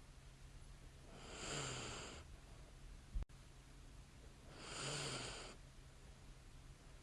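A woman breathing slowly and lightly snoring in her sleep: two long breaths about three seconds apart, each starting with a short low snore. A single sharp click falls between them, over a faint steady hum.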